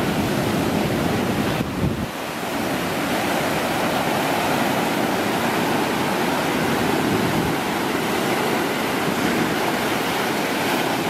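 Sea surf breaking and washing in over rocks on a sandy shore: a steady rush of waves and foam.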